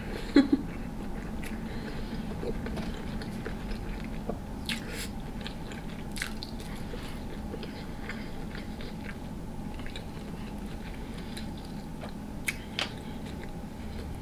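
Close-up mouth sounds of biting and chewing a sauce-drenched mouthful of potato, shrimp and sausage, with scattered wet smacks and small crisp clicks.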